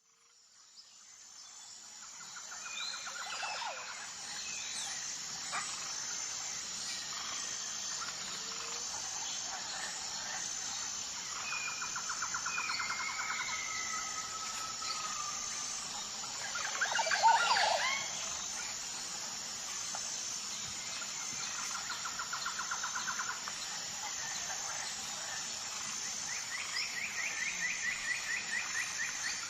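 Jungle ambience: a steady, high insect chorus with an even pulsing beat, and birds calling over it with repeated trills and whistled glides. A louder call comes about 17 s in, and the ambience fades in over the first few seconds.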